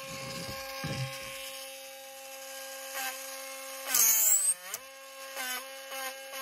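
Small handheld rotary tool whining steadily as its countersink bit cuts into the screw holes of a wooden fingerboard deck, with a short grinding rasp about a second in. About four seconds in the bit bites and the tool lets out a loud screech, its pitch sagging under the load and then climbing back.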